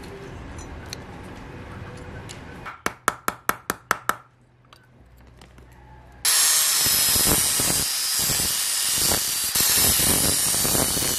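A quick, even run of about eight sharp strikes, then a quiet gap, then from about six seconds in a power tool working metal, loud and steady with a high whine over a grinding hiss.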